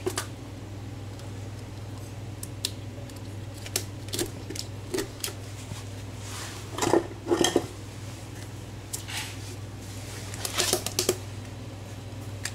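Scattered clinks and knocks of dishes and utensils being handled, louder in short clusters about halfway and again near the end, over a steady low hum.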